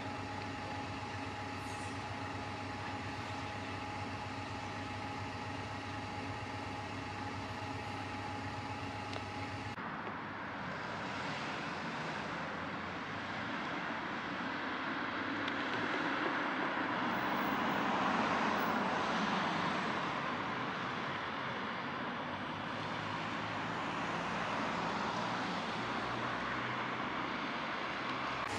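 A steady engine hum with a low drone and a thin high tone for the first ten seconds. After a sudden change, road traffic noise in which a passing vehicle swells to its loudest about two-thirds of the way through and fades.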